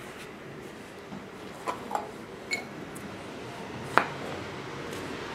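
Chopped green onions being scooped by hand into a small ceramic bowl on a plastic cutting board: a few light clinks and knocks of the bowl, with one ringing clink about two and a half seconds in and a sharper knock about four seconds in.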